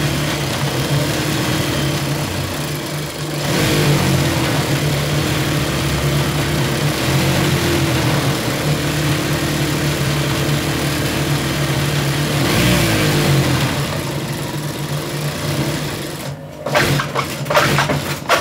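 Juki DDL-5550 industrial lockstitch sewing machine running steadily and stitching through cloth, its motor humming, with the thread tension set so it sews cleanly without breaking the thread. Near the end the steady run stops and a few short clattering knocks follow.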